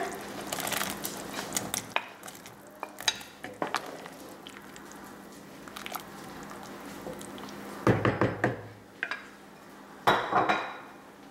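A spoon clinking and scraping against a cooking pot and a bowl as diced zucchini is tipped into the soup and stirred in: scattered light clicks, with two louder clusters of knocks near the end.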